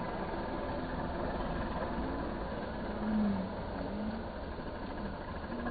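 Kubota tractor's diesel engine running steadily under load as it works to free itself from deep mud with its front blade. About halfway in there is a short, louder wavering tone.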